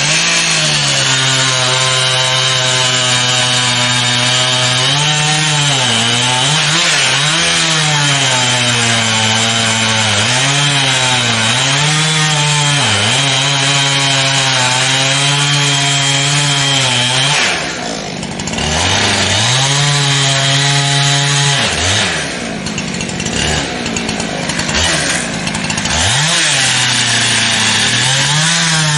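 Gas chainsaw running at high revs while cutting into a tree, its engine note dipping and recovering again and again as the chain loads in the cut. It drops back briefly about 18 seconds in and again for a few seconds from about 22 seconds, then revs up once more.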